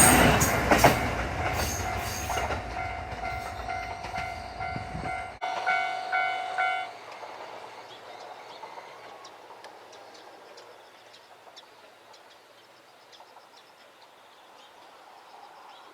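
KiHa 122 diesel railcar pair passing over a level crossing and moving away, its rumble and wheel clacks over the rail joints fading. The crossing's electronic warning bell rings in a steady repeating pattern and stops about seven seconds in, leaving a quiet background with faint ticks.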